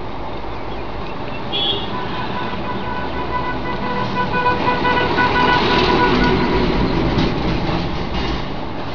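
A road vehicle passing by over steady background noise. Its sound swells to a peak about six seconds in, with a held steady tone through the middle, then fades.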